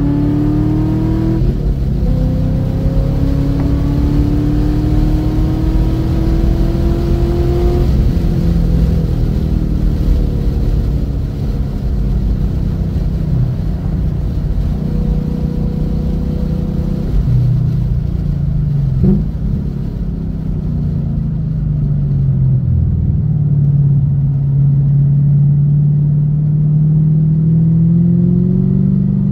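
2016 Camaro SS's 6.2-litre V8, fitted with long-tube headers and a full aftermarket exhaust, heard inside the cabin under hard track driving. The note climbs steadily for the first eight seconds, with a brief break near the start. It then eases off and wavers lower through the middle, and climbs again near the end.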